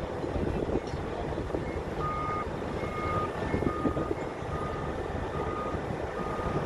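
A heavy vehicle's reversing alarm beeping steadily, one short beep a little under once a second, starting about two seconds in, over the continuous rumble of a diesel engine or heavy machinery.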